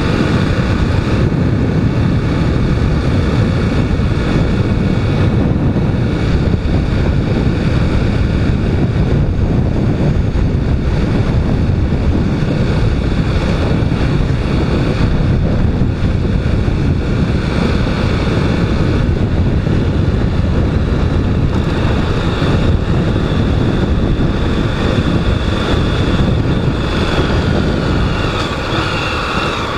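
Honda Twister motorcycle being ridden: its engine runs steadily under wind rushing over the microphone, easing off slightly near the end.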